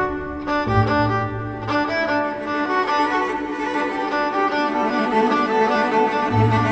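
Background music on bowed strings, violin and cello, playing sustained notes over a low bass line.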